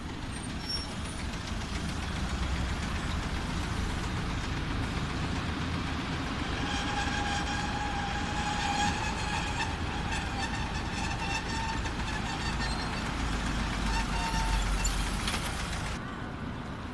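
Hankai street tram running along the road past traffic, giving a steady whine of several pitches for about nine seconds in the middle. The noise drops suddenly near the end.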